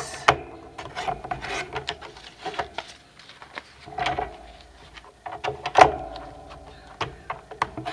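Sliding paper trimmer cutting strips of paper: the blade head scrapes along its rail, and the paper rustles as it is handled, with several sharp clicks, the loudest about a third of a second in and near six seconds.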